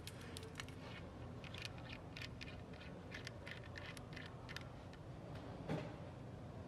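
Small chrome faucet fittings handled in the fingers: faint, scattered metal clicks and ticks as the threaded parts touch and turn, with one louder knock near the end.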